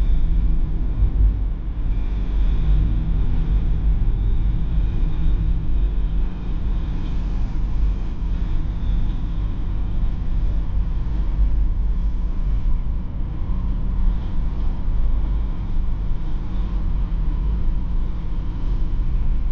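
BMW E46 320d's four-cylinder turbodiesel heard from inside the cabin while driving at a steady pace: a low, steady engine drone mixed with tyre and road noise.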